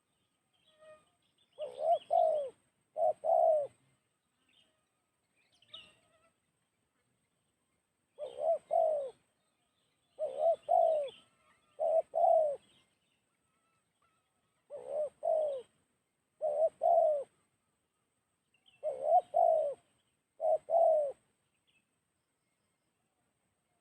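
Spotted dove (tekukur) cooing, a series of short two- or three-note phrases repeated every second or two with longer pauses between some groups.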